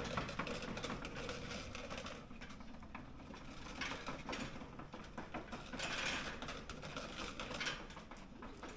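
Faint, irregular clicking and pattering from dogs' paws: an Akita trotting on a slat-belt dog treadmill and a husky walking on tile, with a few louder clusters of clicks.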